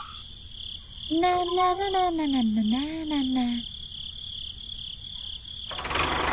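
A wavering, voice-like call that glides down and back up in pitch for about two and a half seconds. Near the end, a toy tractor's motor sound rises in.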